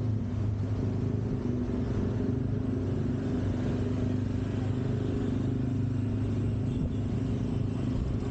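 A vehicle engine running steadily at an even cruising speed, heard from aboard the moving vehicle, with a low rumble underneath.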